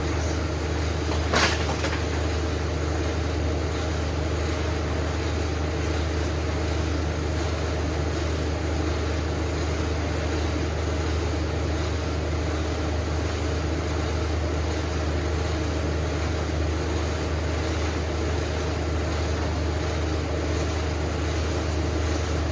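Gas torch flame burning steadily as it heats a seized broken bolt to expand the metal around it, a constant low roar with hiss. A single sharp click about a second and a half in.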